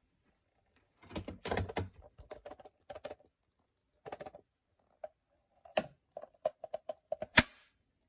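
Clear plastic dust canister of a Shark Stratos stick vacuum handled by hand: a cluster of rattling knocks about a second in, then a string of separate plastic clicks, the loudest a sharp snap near the end.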